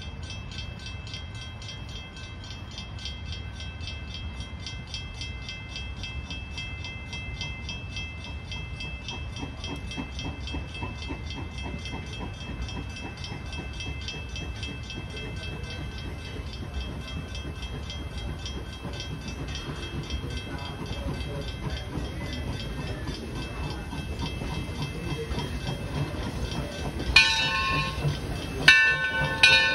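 0-6-4T tank steam locomotive standing with a steady hiss and low rumble, then sounding its steam whistle in several blasts near the end, a longer one followed by shorter toots.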